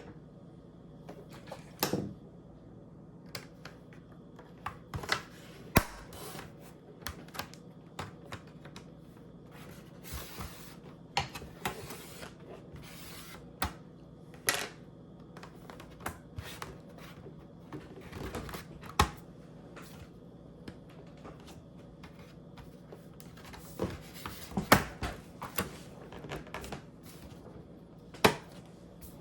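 Irregular clicks and taps of small repair tools and parts against a MacBook Pro's case and internals during a speaker replacement, with a few sharper knocks.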